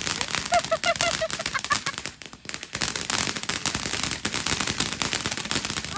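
Firework barrage going off: a rapid, continuous string of crackling bangs, like machine-gun fire.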